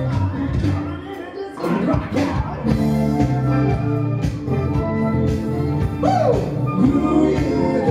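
Live band playing upbeat dance music with a steady beat, loud throughout.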